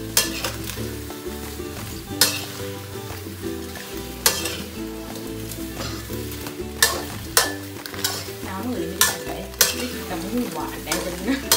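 A spatula stirring whole shrimp in a steel wok over a gas flame: the shrimp sizzle while the spatula scrapes and knocks sharply against the pan about a dozen times at irregular intervals.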